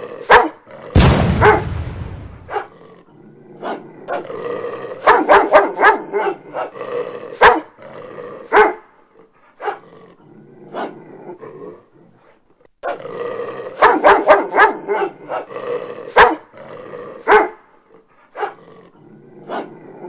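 Dog barking in fast volleys with short pauses between them. About a second in, a sudden loud rushing noise fades away over a second or so.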